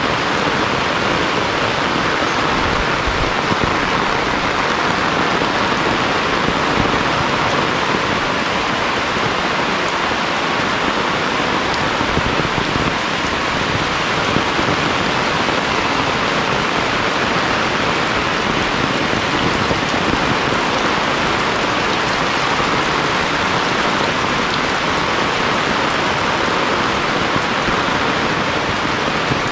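Heavy rain falling steadily: a dense, even hiss of rain on the ground and surfaces.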